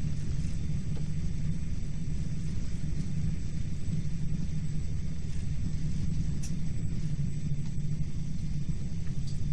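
Steady low rumble of a Hyundai Rotem Intercity+ electric train running at speed, heard from inside the passenger car, with a few faint clicks.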